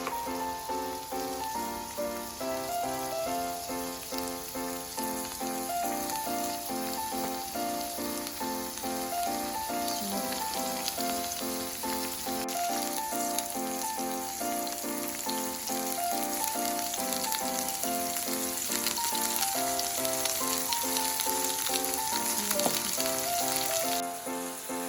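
Food frying in a pan, a steady sizzle that grows stronger in the second half, under light background piano music.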